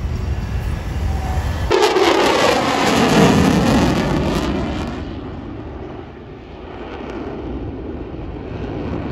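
Jet aircraft flying past at an air show, its engine noise sweeping down in pitch as it goes by, then fading. Before it, a low rumble cuts off abruptly about two seconds in.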